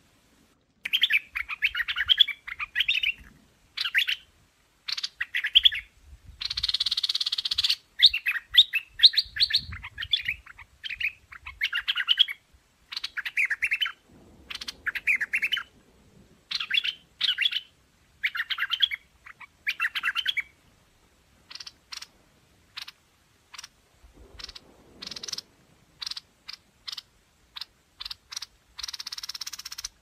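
Streak-eared bulbul singing: repeated bursts of quick chirping phrases with short gaps, one harsher, longer call about seven seconds in. In the last third the song gives way to a run of short, sharp single notes.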